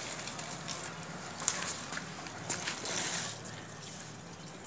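Plastic wheels of a baby walker rolling over a tiled floor: a steady rolling noise with a few sharp clicks, easing off a little near the end.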